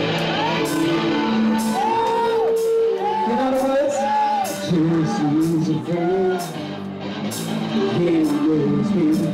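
Live band playing a song through a PA system, with a sung melody and a steady beat of cymbal hits.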